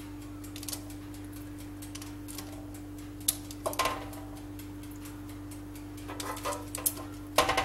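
Zucchini slices being laid down one at a time on oiled parchment paper in a baking tray: short soft slaps and paper crinkles about three seconds apart, the last the loudest. Under them run a steady low hum and a faint ticking.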